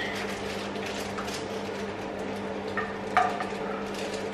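A metal utensil scrapes and clinks lightly against a frying pan as food is served out onto plates, with one sharper clink about three seconds in. A steady low hum runs underneath.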